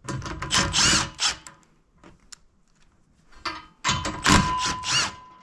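Cordless drill spinning a socket on an extension to run nuts off a bumper mounting bracket: two runs of the motor, the first right at the start and the second about three and a half seconds in, with a steady whine.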